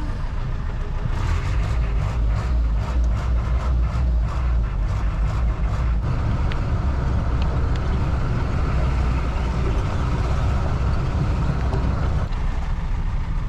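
Jeep driving on a rough unpaved mountain track, heard from inside: a steady low engine and road rumble, with rapid knocks and rattles through the first half that thin out later.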